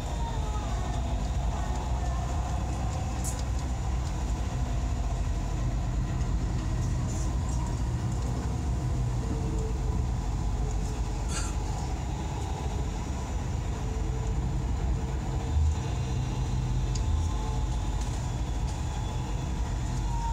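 Dubai Metro train running along elevated track, heard from inside the car: a steady low rumble of wheels on rail with a faint steady whine and a few light clicks.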